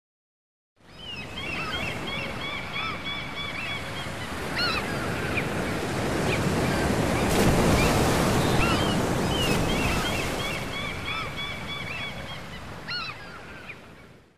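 Sea surf washing on a shore with a flock of gulls calling over it. It fades in about a second in, swells toward the middle and fades out at the end.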